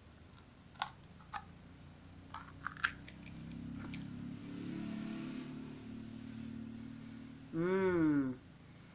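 Sharp clicks and crackles as a sealed jar of body scrub is opened and its seal broken, followed by a steadier low sound. Near the end comes a short, pleased vocal "mm" that rises and falls.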